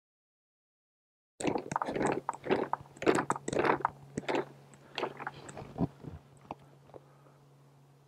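Wooden beehive supers being handled and stacked onto a hive: a quick run of wooden knocks and clatters starting about a second and a half in, thinning out after about four seconds to a faint steady hum.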